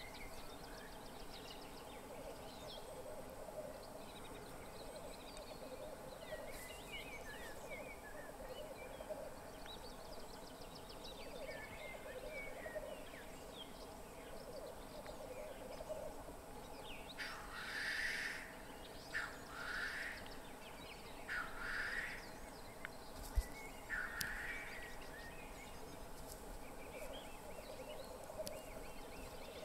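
Black grouse cocks lekking: a continuous low bubbling (rookooing) song, broken between about 17 and 25 seconds by four or five loud hissing calls of about a second each. A single sharp click sounds about 23 seconds in.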